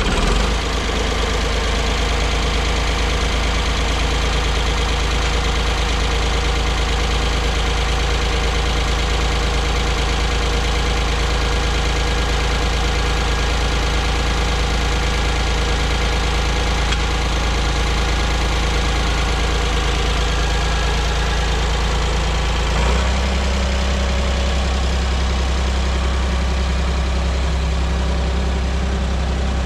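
Ford 4600 tractor engine running steadily at idle just after being started, on a test run after a clutch replacement. Its low note shifts about three-quarters of the way through, as the engine speed changes.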